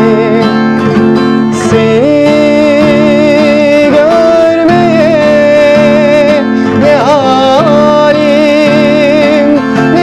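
A man singing a slow song in long held notes with a slight waver, accompanying himself on a strummed acoustic guitar.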